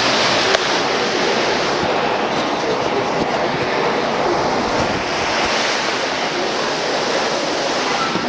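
Hurricane-force wind blowing hard, a loud, steady rush of noise, with one sharp click about half a second in.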